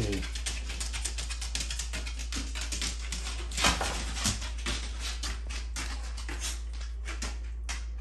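A dog making a short sound about three and a half seconds in, over a steady run of fast, irregular ticking.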